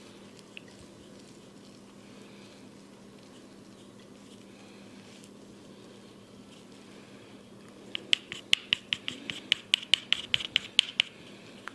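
Faint rubbing and scratching of hands on the scalp during a head massage. About two-thirds of the way through comes a quick, even run of some fifteen sharp taps, about five a second for three seconds, as hands strike the head.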